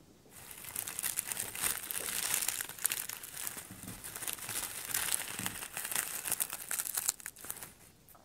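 Dry sheets of roasted seasoned laver (gim) being crumpled and crushed by hand: a dense, rough crackling rustle, like walking through dry fallen leaves, that stops about a second before the end.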